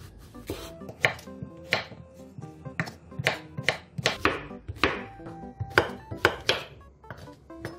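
A chef's knife cutting through a zucchini and striking a wooden cutting board: a dozen or so sharp chops at an uneven pace of about two a second.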